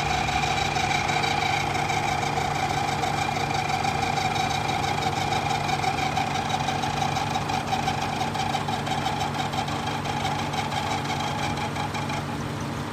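Car engine idling with the air conditioning running, carrying a steady high whine over the engine hum; the owner does not know the cause. The whine stops near the end while the idle carries on.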